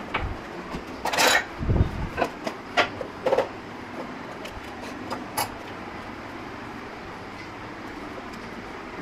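Kitchen clatter: a quick run of knocks, clinks and a scraping clatter as plastic food-processor parts, lids and utensils are handled on the counter, with one dull thud about two seconds in. It falls off after about five seconds to a steady background noise.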